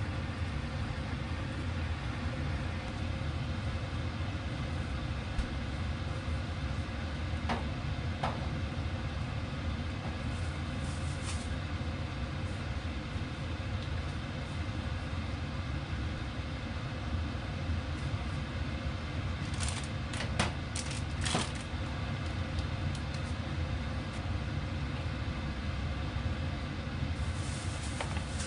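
Steady low rumble of a kitchen range hood fan, with a few light clicks and knocks, most of them in a cluster about twenty seconds in.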